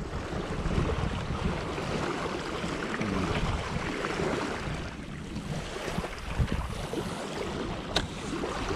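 Wind buffeting the microphone over a steady outdoor hiss, with one sharp click near the end.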